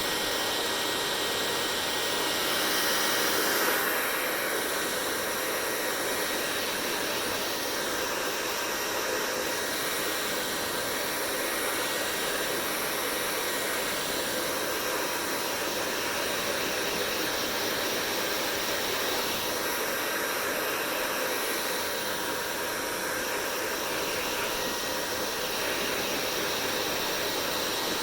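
Hair dryer running steadily: a constant rush of blown air with a faint motor whine on top, swelling briefly about three seconds in.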